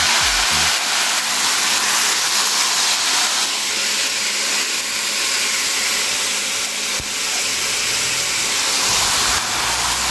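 Wet dasheen bush (taro) leaves and stems sizzling in hot oil in a pan: a steady hiss of steam as the rinse water on the leaves hits the hot fat.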